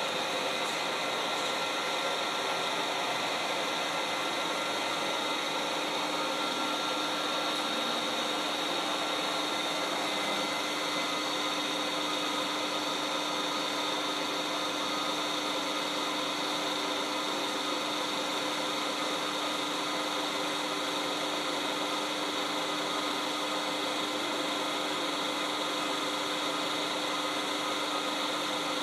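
Colchester CNC 2000L lathe running under program control, a steady machine whir with several steady whining tones over it. One higher tone drops out about ten seconds in.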